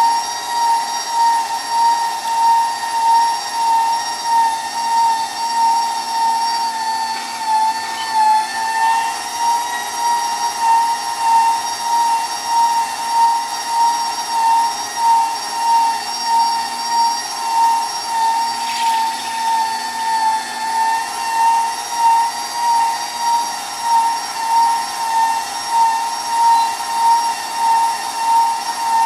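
KitchenAid stand mixer running its food grinder attachment, grinding cubed ham: a steady motor whine that swells and dips in a regular pulse about once a second.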